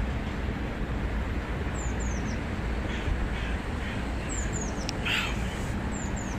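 Outdoor ambience: a steady low rumble of distant traffic, with birds giving pairs of high, quickly falling chirps three times and a harsher, scratchy call about five seconds in.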